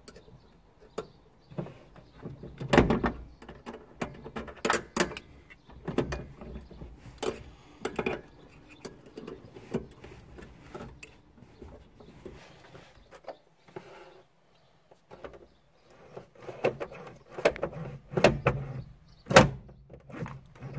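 Irregular sharp metallic clicks and knocks of hand tools and a small bolt as a throttle cable is fastened to the top of a car's accelerator pedal, several of them loud, with a brief pause about two-thirds of the way through.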